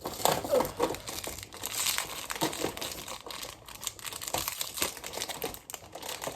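Toy packaging crinkling and rustling, with irregular small clicks, as figures are worked out of it by hand.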